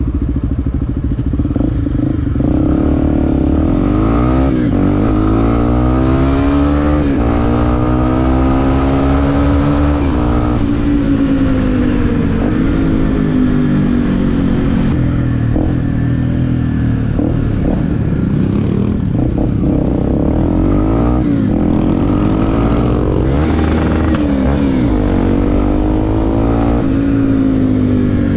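Motorcycle engine heard while riding, revving up and shifting: its pitch climbs and drops back again and again.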